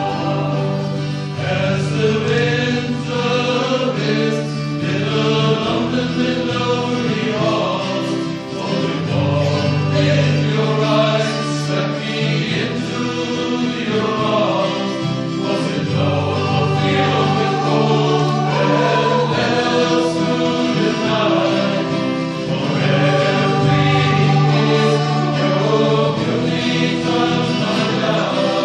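Choral music: voices singing together over held bass notes that change every few seconds.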